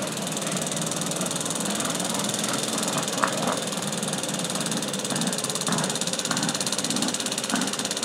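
Garden tractor engine running steadily under load while it pulls a weight-transfer sled at walking pace. A few sharp clacks come through, the loudest about three seconds in.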